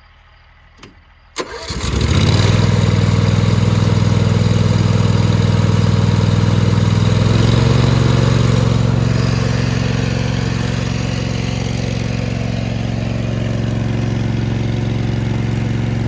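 Small gasoline engine driving a fire-truck water pump, started with the switch on, a little throttle and some choke. It cranks briefly and catches about a second and a half in, then runs steadily and loudly, its note shifting slightly about halfway through.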